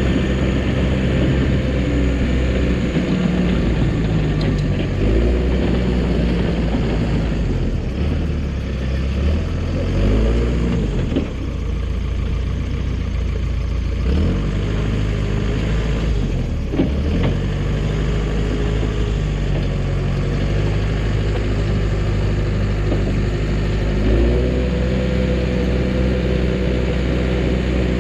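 Dresser bulldozer's diesel engine running steadily, its pitch dipping and recovering several times before stepping up again near the end as the load on it changes.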